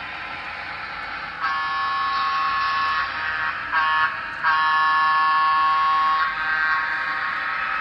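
Sound-equipped N scale model diesel locomotive's electronic horn, a several-note chord, sounding three blasts (long, short, long) over the locomotive's steady running sound from its small onboard speaker.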